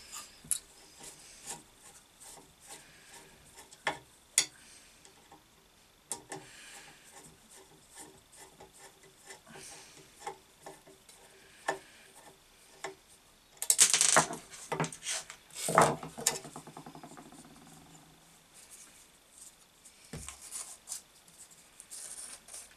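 A screwdriver and hands working inside a bench grinder's sheet-metal base, freeing the capacitor and switch wiring: scattered clicks, scrapes and rubbing. Louder rasping scrapes come a little past the middle, one trailing off in a short rapid rattle.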